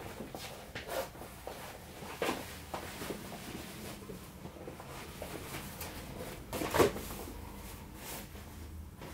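Handling noises: scattered rustles and light knocks as garments are moved about, with one sharper knock about seven seconds in.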